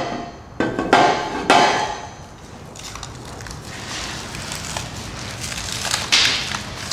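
Hardware for an aluminium-extrusion frame being handled: a few sharp metallic knocks in the first two seconds as brackets and bolts are set down and moved. Near the end comes a short crinkle of a plastic bag of small parts.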